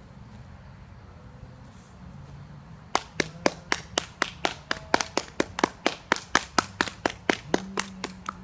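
Hand clapping, starting about three seconds in: sharp, evenly spaced claps at about four a second.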